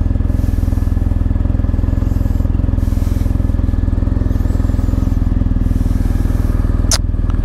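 BMW R1250GS boxer-twin motorcycle engine idling steadily, with one sharp click near the end.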